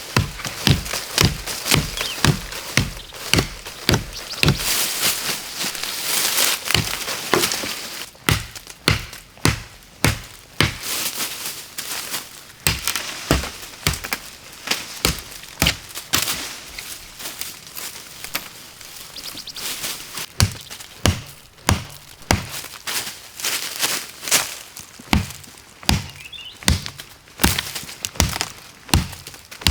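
Wood being chopped by hand with a steady run of sharp blows, about two a second. Between about four and eight seconds in there is a noisier, hissing stretch where the strikes blur.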